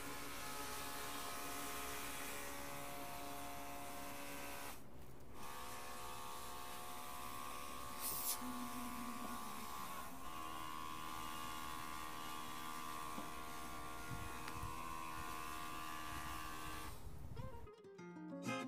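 Baseus cordless electric high-pressure car wash gun running steadily: a buzzing hum from its small electric pump motor over the hiss of the spray, with a brief break about five seconds in. It fades out about a second before the end.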